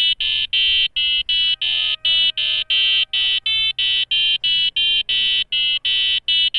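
Arduino-driven buzzer playing a simple tune as a run of short, shrill beeping notes, about three a second, with the pitch changing from note to note.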